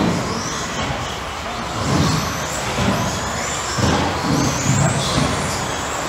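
Electric RC buggies' motors whining on the track, the pitch rising again and again as they speed up, over intermittent low rumbling.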